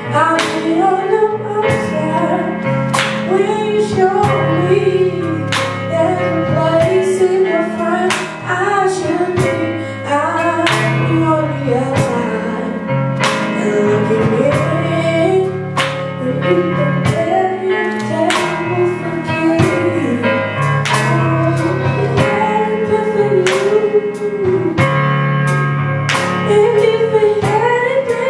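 Live gospel music: a band with drums keeping a steady beat under a bass line, and a wavering sung melody over it.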